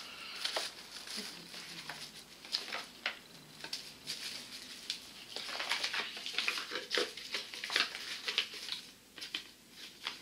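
Plastic and cardboard packaging being handled: irregular crinkling and small clicks as a small device is pressed back into a tight-fitting packaging insert.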